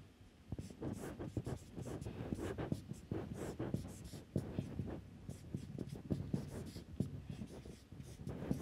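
Marker pen writing on a whiteboard: a busy run of faint, short, scratchy strokes.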